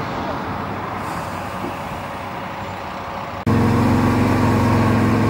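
Fire engine running steadily at the scene of a car fire, its pump feeding the hose lines. It starts as a steady rushing noise, and about three and a half seconds in the sound jumps suddenly to a louder, closer, even engine hum.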